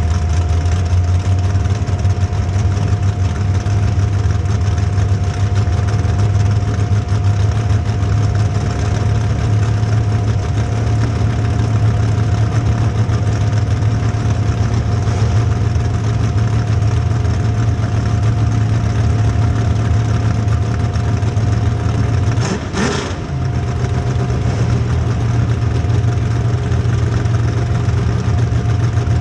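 Demolition derby car engines running loud and steady in a low drone. About 22 seconds in there is a brief sweeping sound, with a short dip in loudness.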